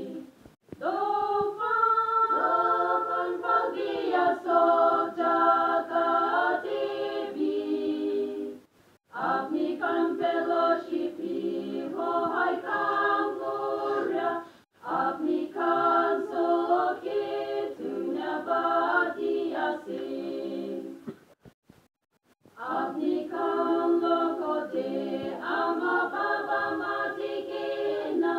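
Women's choir singing a cappella, in sung phrases with short breaks between them and a longer pause about three quarters of the way through.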